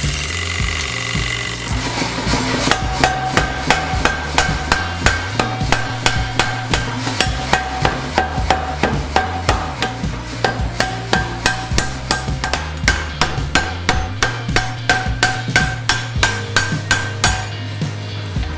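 Massey pneumatic power hammer striking hot steel through a top tool in a steady run of about four blows a second, with a ringing metallic note over the blows. The blows begin about two seconds in over the hum of the running hammer. This is the first forging on its freshly hard-faced top die.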